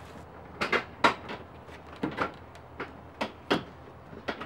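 Plastic front bumper cover of an Audi A4 B7 being pushed onto the car by hand, giving about eight sharp, irregular plastic knocks and clicks as it seats into its mounts.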